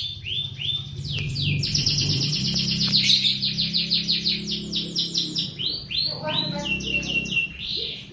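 White-rumped shama singing a rapid run of repeated, sweeping whistled notes: slower at first, a fast rattling series through the middle, then slower notes and a held whistle near the end. A low steady hum runs underneath.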